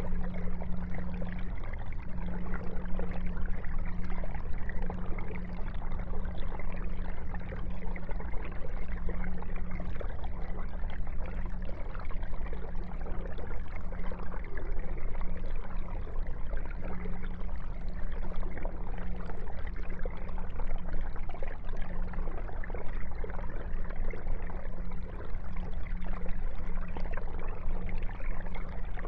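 Aquarium filter running: a steady trickle and splash of water falling back into the tank, with a low hum underneath.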